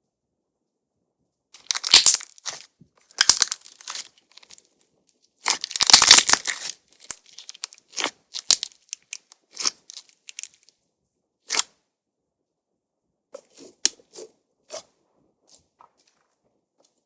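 Crunch-texture slime crackling and popping as fingers press and squeeze it. A few loud crunching bursts come first, the loudest about six seconds in, then smaller scattered pops and clicks that thin out toward the end.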